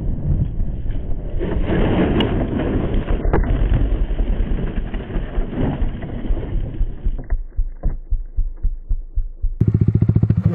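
A Yamaha R15 motorcycle crashing, heard from the rider's helmet camera: wind and engine noise as the bike runs off the road into the dirt and goes down, with knocks along the way. The sound breaks into quick separate pulses and ends in a rapid, even throbbing.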